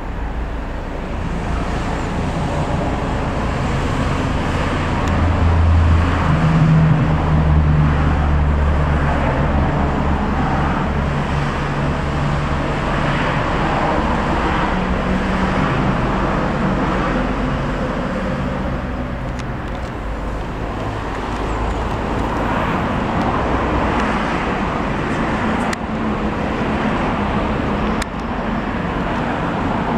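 Eurocopter EC135 P2+ police helicopter flying overhead, its rotor and turbine noise a steady rumble with a low hum. It grows louder about five seconds in, eases off past the middle, then swells again later on.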